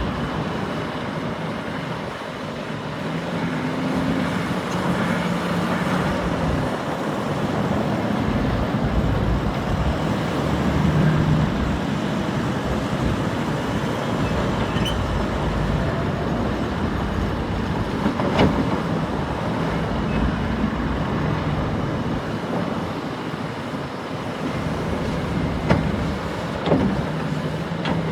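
Komatsu HB365LC hybrid excavator running, its engine note rising and falling as it works. A few sharp knocks come through, one about two-thirds of the way through and two near the end.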